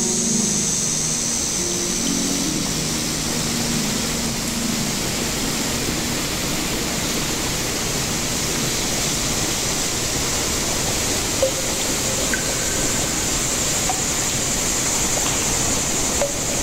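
Steady rush of river water running over rocks. Background music fades out in the first few seconds.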